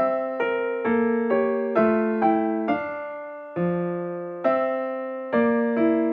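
Background music: a keyboard playing a slow run of chords, each struck note ringing and fading before the next.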